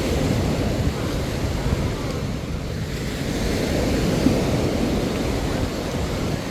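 Wind buffeting the microphone in a steady low rumble, over the wash of small waves on the beach.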